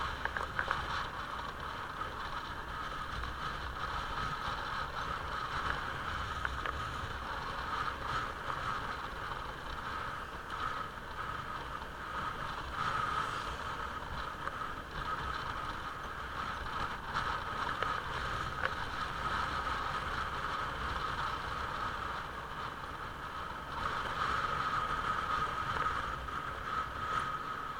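Onboard sound of a motorcycle riding along a road: steady engine and wind noise, a little louder for the last few seconds.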